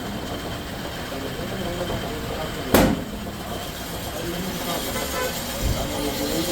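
Steady workshop machine noise, with faint voices in the background and one loud sharp knock a little under three seconds in.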